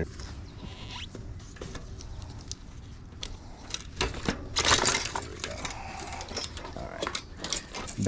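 A road bike's chain and rear wheel being worked free of the rear derailleur and dropouts: scattered small metallic clicks and rattles, with a louder clatter about four and a half seconds in.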